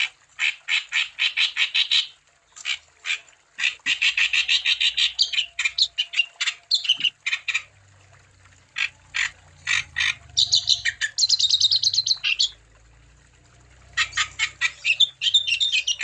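Wambi songbird singing hard in fast chattering bursts of sharp, rapidly repeated notes, about seven a second, broken by short pauses. A higher trilled phrase comes about ten seconds in.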